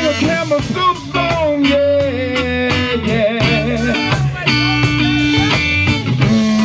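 Live soul-blues band playing: electric guitar, bass guitar and drum kit over a steady beat, with gliding melodic lines above.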